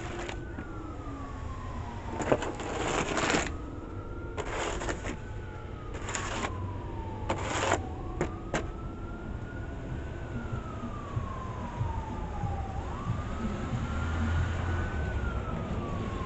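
Snow shovel scraping and pushing snow on a concrete sidewalk, seven or so short scrapes in the first half. Behind it a siren wails, its pitch slowly rising and falling the whole time. A low vehicle rumble comes in near the end.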